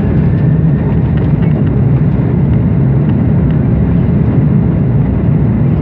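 Airbus A330-300 jet engines running at high power during take-off: a loud, steady, low rumble.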